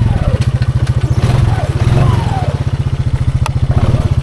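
Honda Foreman ATV's single-cylinder engine idling with a steady low pulsing beat, with a few faint squeaks and one sharp click about three and a half seconds in.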